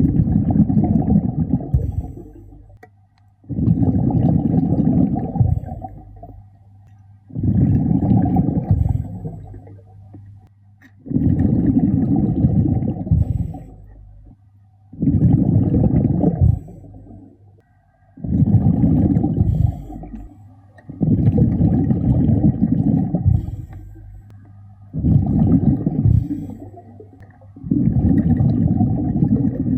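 A diver breathing underwater through a regulator: a low bubbling rumble of exhaled air about every three and a half seconds, each exhalation lasting about two seconds, with quiet breaths in between.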